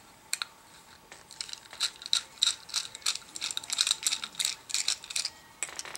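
Thin chrome-look foil sticker being peeled off a laptop hard drive's spindle hub: a run of small crinkling and ticking sounds, thickest in the middle of the stretch.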